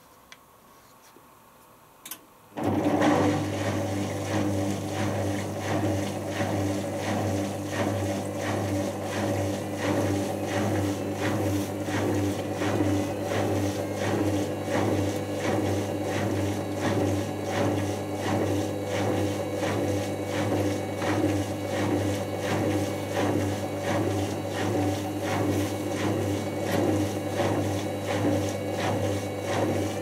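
Indesit washing machine's drain pump cutting in with a click and then running steadily as water is pumped out: a low hum with a fast, even rattle. The owner calls the pump very rough and says it needs replacing.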